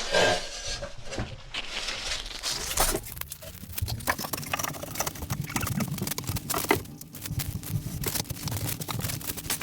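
Clicks, taps and scraping from vinyl flooring planks being handled and worked on, with a steady low hum starting about four seconds in.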